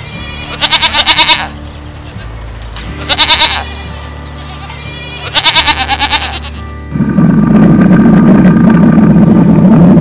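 An animal calling in short, quavering pitched cries about every two and a half seconds over background music, followed by a louder, low, rough sound lasting about three seconds near the end.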